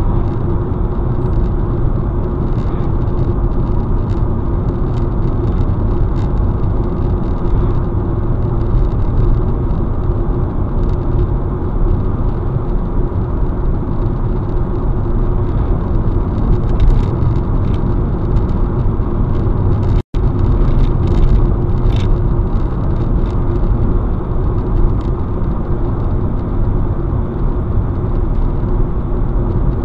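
Steady road and engine noise of a car cruising on a highway, heard from inside the cabin. The sound cuts out for a split second about two-thirds of the way through.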